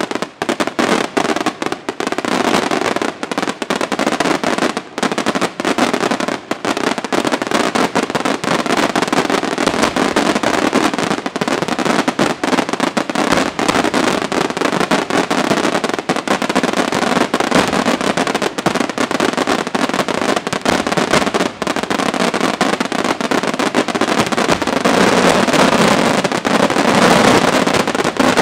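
Firework display going off in a rapid, continuous barrage: aerial shells bursting over a constant crackle, growing louder over the last few seconds.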